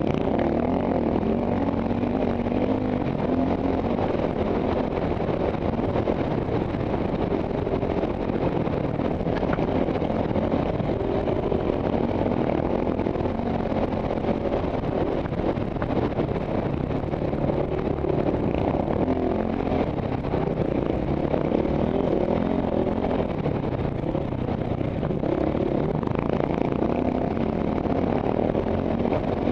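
Single-cylinder four-stroke KTM trail bike engine running steadily under load, its pitch wavering a little with the throttle, heard close up from a helmet camera.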